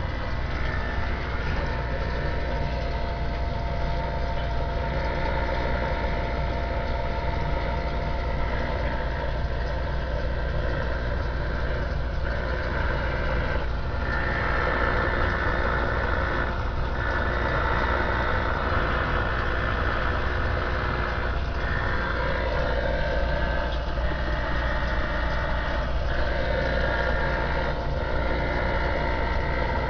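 Steady static and hum from a vintage DAK Mark 9 CB radio's speaker on an open channel. From about halfway through, a band of hiss swells and cuts out briefly several times.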